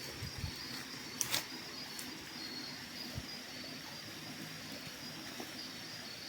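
Insects chirring steadily in thin high tones, with one sharp click a little over a second in.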